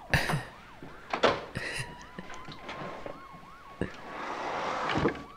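Police sirens from a film soundtrack, one yelping in quick rising-and-falling sweeps about three times a second over a steadier tone, with a few short knocks.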